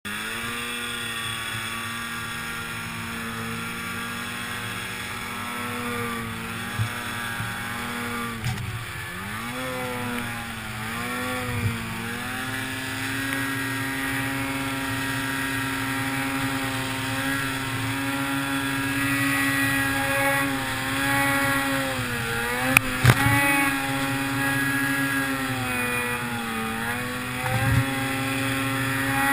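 Tuned 2008 Ski-Doo Summit 800 cc two-stroke snowmobile engine running at high revs through deep powder. The revs drop and pick up again several times about a third of the way in, and dip again about three-quarters through, where a few sharp knocks are heard.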